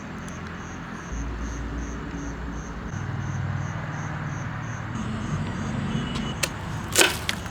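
A steady low engine-like rumble with a faint, evenly repeating high chirp, about three or four a second, like an insect; a couple of sharp clicks or knocks come near the end.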